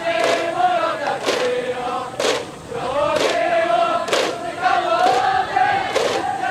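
Massed student cheering section chanting and singing in unison, punctuated by sharp beats about once a second, with a short break in the chant a little past halfway.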